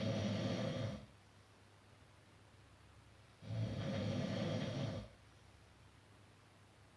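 A person snoring, in slow regular snores: one snore ends about a second in, and another, about a second and a half long, comes about three and a half seconds in.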